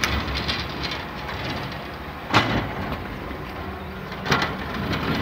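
Low steady rumble of a diesel railcar idling at the station, with two sharp knocks about two and a half and four seconds in.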